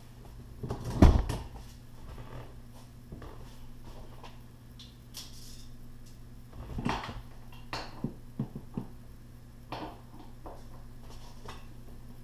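Clunks and clicks of a MINI passenger seat being shifted on its rails. There is one heavy thump about a second in, then a scatter of sharper knocks, over a steady low hum.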